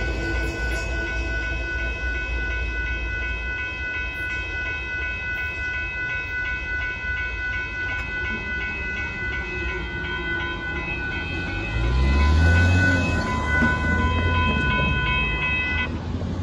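Railroad grade-crossing bells ringing steadily in a regular pulsing pattern, then cutting off suddenly near the end as the crossing clears. The low rumble of the departing freight train fades at the start, and a low rising engine sound comes in about twelve seconds in.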